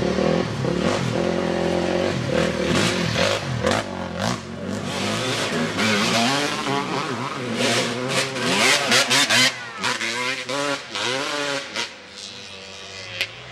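Dirt bike engines revving, their pitch climbing and dropping with the throttle, more than one bike at once. Loudest about nine seconds in, then quieter near the end.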